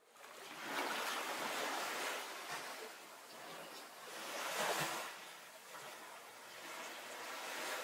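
Sea waves washing in: one swell about a second in and a stronger one near the middle that then draws back.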